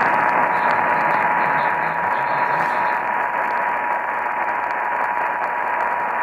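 Heavy radio static, a loud hiss confined to a narrow audio band, comes in abruptly. A single steady tone near 1 kHz is held underneath it, as from an alert tone on a weak, noisy radio signal.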